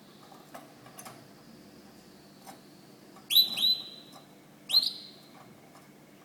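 White canary giving three short, high calls, each sliding down into a brief held note: two in quick succession about three seconds in, a third about a second and a half later. A few faint clicks come before them.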